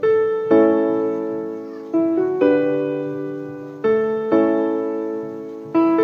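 Background piano music: slow, gentle chords struck in pairs, a second chord about half a second after the first, repeating roughly every two seconds, each ringing out and fading.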